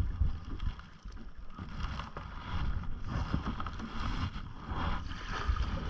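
Canoe paddle strokes through lake water, with splashing and water lapping at the hull, over a steady low rumble of wind on the microphone.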